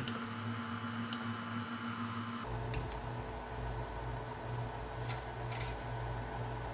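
Anycubic Kobra Go 3D printer's fans running with a steady low hum, whose sound changes about two and a half seconds in, with a few faint clicks as filament is pushed into the extruder.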